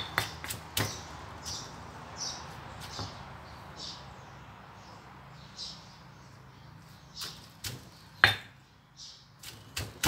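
Stone pestle pounding in a stone mortar, crushing roasted chilies, shallots and garlic for a Thai chili paste. A few knocks at the start, a lull in the middle, then several separate strikes and the pounding picking up again near the end.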